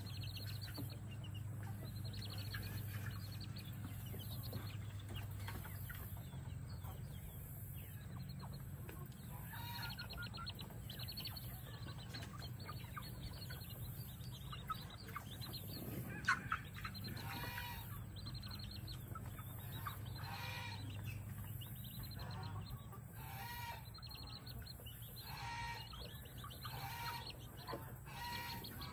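Mother hen and her chicks calling: short repeated clucks and peeps, coming more often in the second half, over a steady low hum that fades about three-quarters of the way through.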